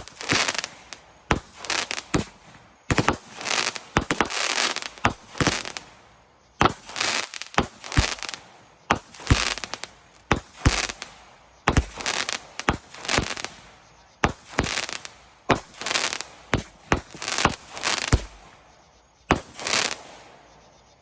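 Consumer fireworks going off shot after shot: a fast series of sharp bangs, each followed by a burst of crackling, stopping about twenty seconds in.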